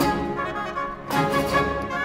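Baroque chamber orchestra of strings, flutes and oboes playing a fast contredanse, with sharp accented chords at the start and again about a second in.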